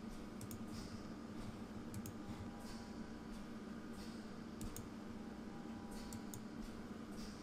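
Faint, scattered clicks of a computer mouse and keyboard, irregularly spaced, over a steady low hum.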